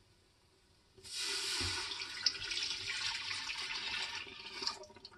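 Chicken broth poured in a steady stream from a glass container into the stainless steel inner pot of an Instant Pot, onto a thick butter-and-flour paste. The splashing starts about a second in and stops just before the end.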